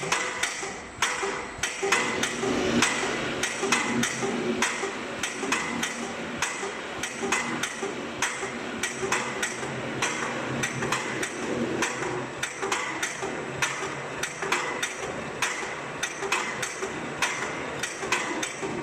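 Paoloni cross cutter distressing machine working a wooden floorboard: its piston-driven cutting heads strike the wood in a quick, irregular series of sharp knocks, a few a second, over the steady running of the machine. The random spacing of the knocks comes from the randomly firing pistons on the second head, which cut the band-sawn effect.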